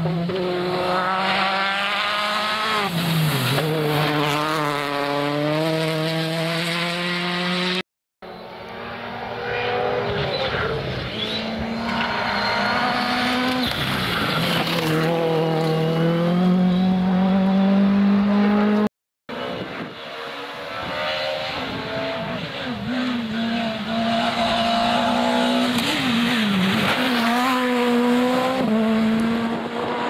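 Rally car engines at full throttle, revving up and dropping sharply as they change gear while sliding past, in three short passes separated by brief silent cuts about 8 and 19 seconds in.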